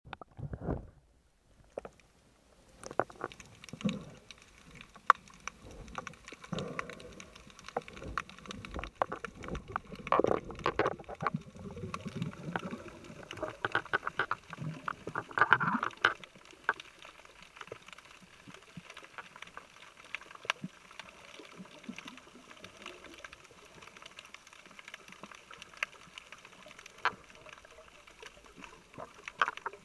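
Water heard through a camera at and under the surface: muffled gurgling and bubbling with scattered knocks and clicks, busiest in the first half and quieter later.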